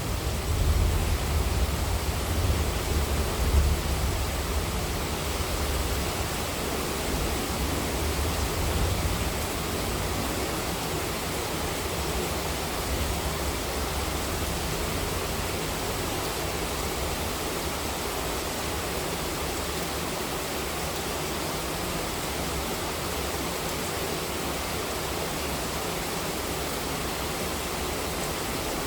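Heavy monsoon rain falling in a steady, even hiss. A low rumble of thunder dies away over the first several seconds.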